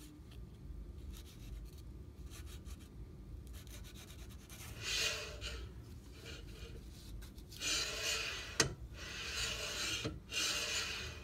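Paper slip used as a feeler gauge rubbing and scraping as it is drawn through the gap between a 3D printer's gantry end block and the aluminium frame extrusion, with the gantry pushed along. It comes as several scraping strokes in the second half, with one sharp click among them, while the gantry-to-frame gap is checked after tightening.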